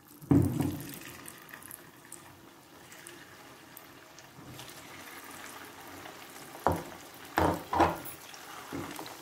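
Cornflour-batter-coated paneer cubes sizzling in hot oil as they are dropped in one at a time. The frying hiss is steady, with a sharp burst of sizzle just after the start and several short louder bursts near the end as more pieces go in.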